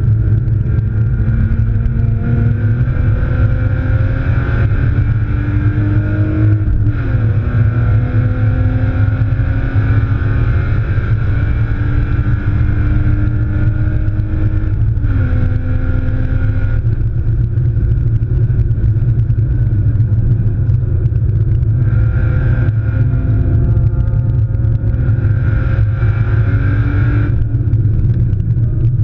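BMW E36 328i's straight-six engine heard from inside the cabin at full throttle, its note climbing through the gears with sharp drops in pitch at upshifts about seven and fifteen seconds in, over a heavy low rumble of road and wind noise. After about seventeen seconds the engine note eases back as the throttle comes off.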